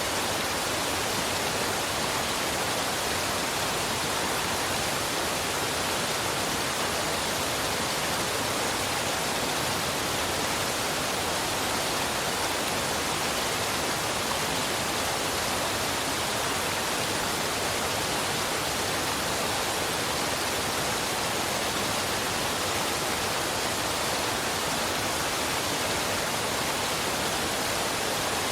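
Waterfall pouring in a steady, unbroken rush with no separate splashes or changes, heard as an even hiss strongest in the upper range.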